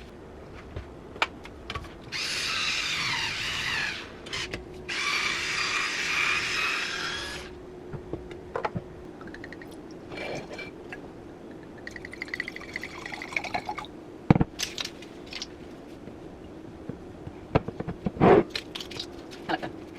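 Kitchen cleaning noises: two loud hissing bursts of a couple of seconds each, starting and stopping sharply, then scattered clinks and knocks over a faint steady hum.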